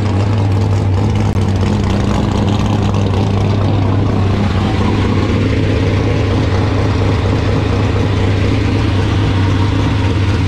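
Dirt-track super truck's race engine idling steadily with a strong, even low hum, being run up to operating temperature in a heat cycle.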